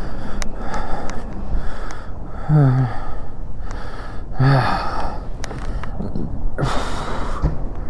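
A man breathing heavily in gasps and sighs, with two short grunts that fall in pitch, about two and a half and four and a half seconds in.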